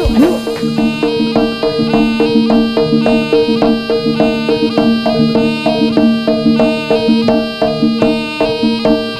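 Live jaranan gamelan music: a slompret, the Javanese shawm, plays a fast, reedy melody over steady held tones and a brisk beat of drums and percussion.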